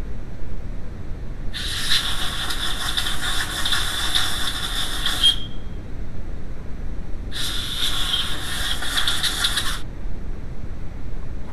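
Two bursts of hissing, the first about four seconds long and the second about two and a half, each with a thin squeaky tone running through it.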